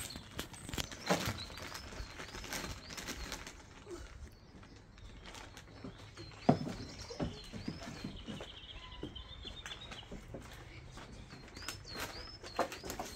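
Garden birdsong: a small songbird sings phrases of a short, high, hooked note repeated about three times a second, with a brief trill around the middle. Occasional knocks and thumps come from children climbing about on a wooden climbing frame, the loudest about a second in and halfway through.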